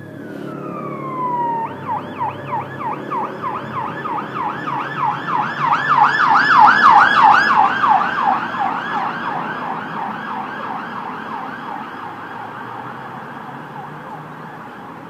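Emergency vehicle siren: one falling wail, then a fast yelp of rising-and-falling sweeps, about three or four a second, that grows louder to a peak around six or seven seconds in and then slowly fades. A low rumble runs underneath.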